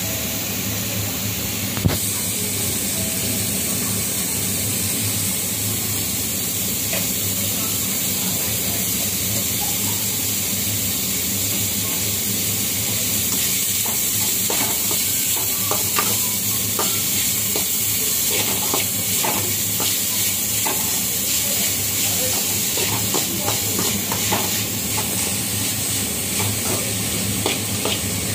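Diced vegetables sizzling steadily as they sauté in a metal kadai, with a slotted metal spatula scraping and clicking against the pan now and then, more often in the second half. One sharp knock about two seconds in.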